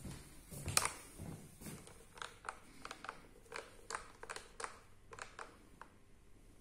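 Handling noise from a plastic bottle and its 3D-printed cap mount and handle: a sharp click near the start, then a run of light, irregular clicks and crinkles of plastic as the rig is held and turned.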